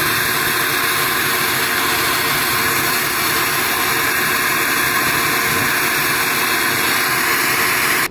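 Flowbench running, pulling air through the port of a ported cylinder head: a steady, loud rush of air that cuts off abruptly at the end.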